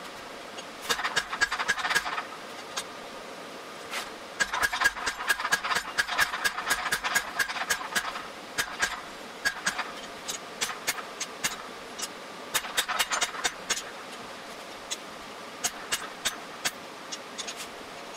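Blacksmith's hammer striking steel on the horn of an anvil, shaping a forged calla lily, with a ringing clang on each blow. The blows come in runs of quick, light strikes: one about a second in, a longer one of three to four seconds, and a shorter one past the middle, with single strikes scattered between.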